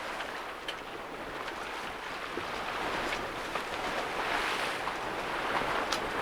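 Water rushing and splashing along the hull of a small sailing yacht moving through the broken water of a tidal race, with wind on top. The rush swells about four seconds in.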